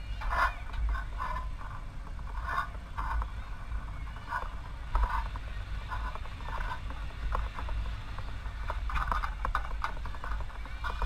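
Wind rumbling steadily on the camera's microphone high on the diving platform, with faint, intermittent distant voices below it.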